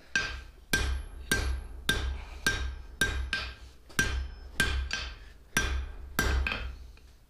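Hand hammer striking red-hot steel bar stock on an anvil: about a dozen steady blows, a little under two a second, each with a short metallic ring from the anvil. The blows stop shortly before the end.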